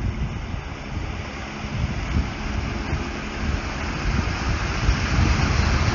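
Wind buffeting the microphone over the wash of water churned up by a flatbed van towing a caravan through floodwater, with the van's engine running underneath.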